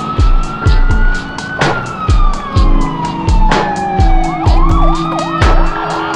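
A fire engine's wailing siren, rising for about a second and a half, falling slowly, then rising again, over music with a steady, heavy beat.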